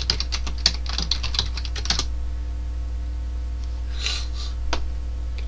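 Typing on a computer keyboard: a quick run of keystrokes for about two seconds. Near the end come a short soft noise and then one single click.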